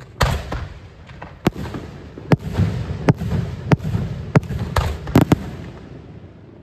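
Fireworks display: a rapid, uneven series of about ten sharp bangs with low rumbling between them, dying away near the end.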